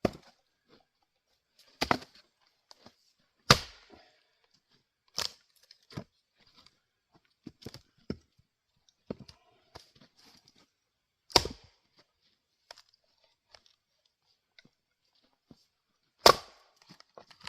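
A light axe splitting firewood: separate sharp cracks of the head striking and splitting the wood, the three loudest well apart, with lighter knocks of wood pieces in between.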